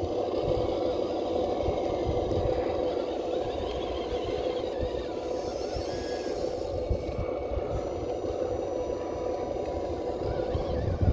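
Steady whine of the electric motors and gearboxes of a 6x6 scale RC truck under load as it tows a Traxxas TRX-4 crawler on a strap, the hum holding at a fairly even pitch.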